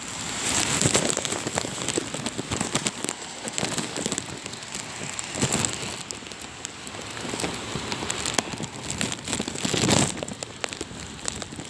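Heavy rain coming down hard in a gusty windstorm, a steady hiss dotted with many sharp drop impacts, swelling louder a few times as gusts drive it.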